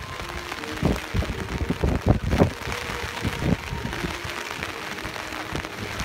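Heavy rain pouring down, with gusts of wind buffeting the microphone in several low thumps about one, two and three and a half seconds in.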